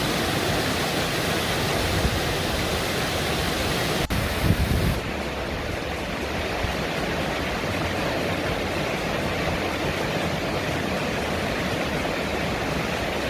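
Waterfall rushing steadily: water falling and running over rocks in a moorland clough. About four seconds in there is a brief break and a short low thud, after which the rush sounds a little duller.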